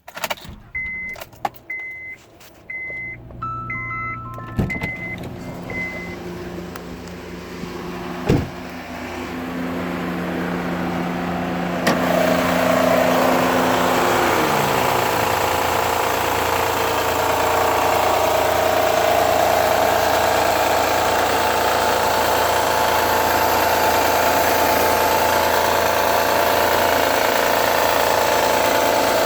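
A car chime beeps about eight times in the first few seconds, then the 2009 Honda Accord's 3.5-litre V6 starts cold and idles steadily, with the knocking and ticking that shows only on a cold start. The owner suspects a pulley or the belt tensioner.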